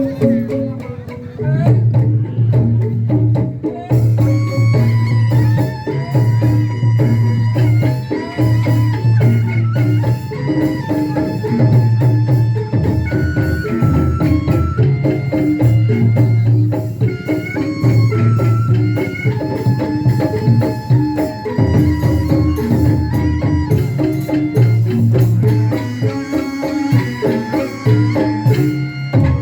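Instrumental passage of a live band playing folk-pop music: drums keep a beat under a melody line of held and stepping notes, with no singing.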